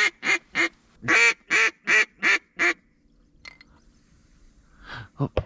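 A rapid run of about eight loud duck quacks, evenly paced at about three a second, stopping about three seconds in. A few short sharp knocks follow near the end.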